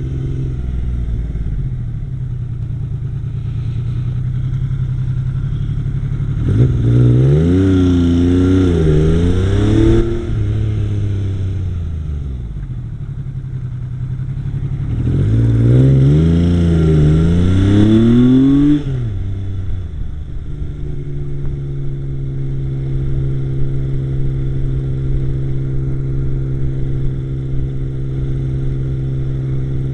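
Yamaha XS850 three-cylinder motorcycle engine idling steadily and revved twice, each rev climbing, wavering and dropping back to idle. The owner says it idles fine but misfires at times while riding.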